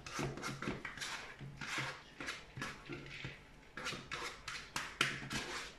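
Plastic spatula scraping cooked quinoa out of a plastic microwave rice-cooker bowl into a plastic mixing bowl: a run of short, uneven scrapes and taps.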